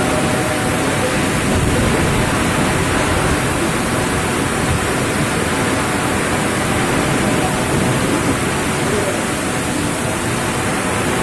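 Strong wind and heavy rain in a storm: a loud, steady rushing noise.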